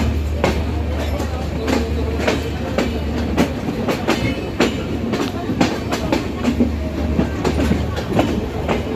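Passenger train rolling past at moderate speed, its wheels clicking over rail joints about twice a second, over a steady low rumble.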